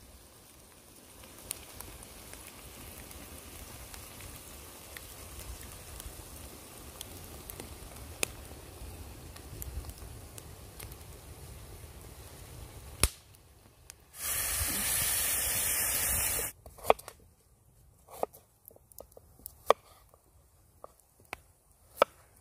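Wood fire crackling in a steel fire pit, with scattered sharp pops that stand out more clearly in the last few seconds. A little past the middle, a loud steady hiss lasts about two seconds and then stops suddenly.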